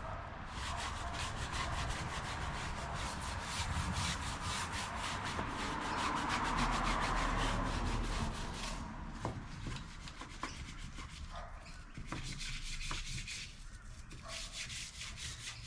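Stiff-bristled brush scrubbing a tyre wet with tyre cleaner, in rapid back-and-forth strokes. The scrubbing is heaviest about six to eight seconds in, then turns lighter and more spaced.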